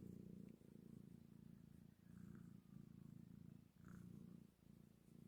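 Kitten purring quietly, a low rumble in stretches of about a second, with short dips as it breathes.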